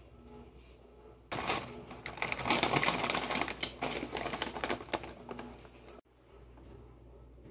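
Plastic pouch of roasted seaweed flakes crinkling and crackling as it is handled and shaken out, starting about a second and a half in and cutting off suddenly near the end.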